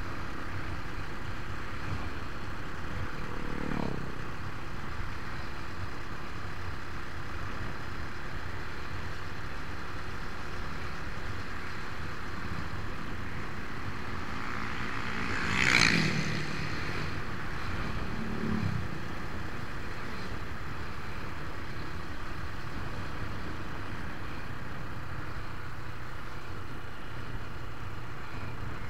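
Road traffic: steady engine and road noise with other vehicles going by. Each pass falls in pitch, and the loudest is about halfway through.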